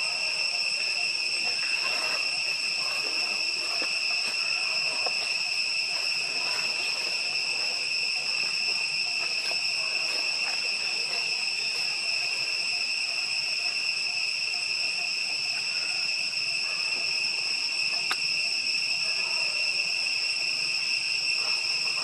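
Steady high-pitched insect drone, one unbroken tone with fainter overtones above it.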